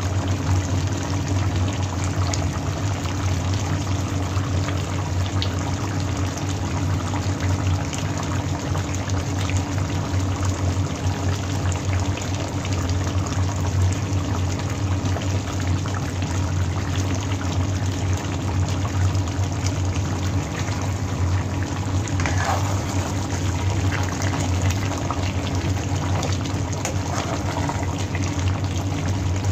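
Chicken caldereta stew simmering and bubbling in a pan, over a steady low hum. Near the end it is stirred with a spatula.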